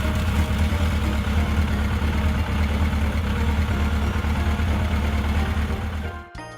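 Motorcycle engine idling steadily with a deep rumble, cutting off about six seconds in, where a tinkly children's jingle begins.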